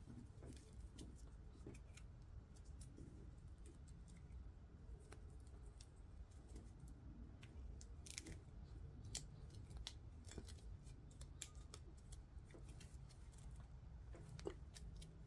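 Faint rustling and small scattered clicks of quarter-inch nylon rope being knotted by hand onto a clip, over a low steady room hum.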